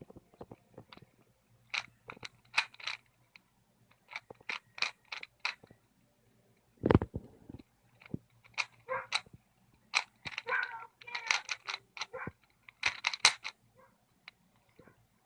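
Plastic 3x3 Rubik's cube being turned quickly, its layers clicking and clacking in irregular runs of turns, with a louder dull thump about seven seconds in.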